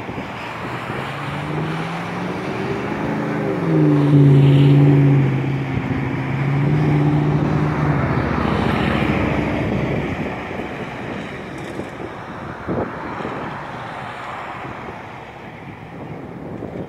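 An engine passing by: its pitch climbs, then holds as a steady drone for several seconds before fading away.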